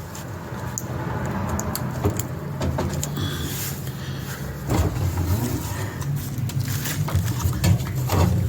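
Dryer parts being handled and fitted during reassembly: scattered clicks and knocks, a few of them sharper, over a steady low hum.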